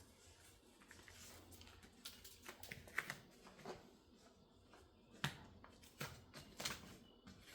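Faint handling noises of fire-rated insulation wrap being worked around a pipe elbow: scattered light clicks and rustles, a few sharper ones about three, five and six seconds in.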